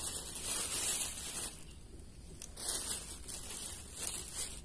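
Crinkling, rustling handling noise in three bursts, the first lasting over a second, as the freshly caught climbing perch is being stowed away to take home.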